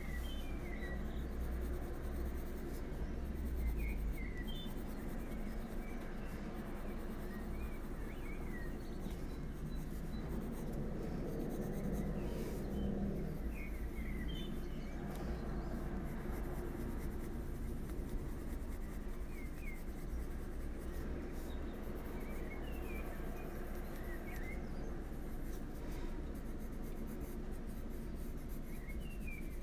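Faber-Castell Polychromos colored pencil scratching across coloring-book paper in steady shading strokes.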